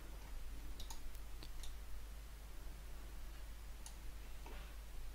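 Computer mouse buttons clicking: a handful of short, sharp clicks, spaced irregularly, over a faint steady low hum.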